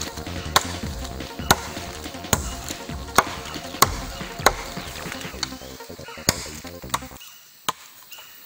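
Machete chopping into a green sapling pole: about ten sharp cuts at a steady pace of roughly one a second.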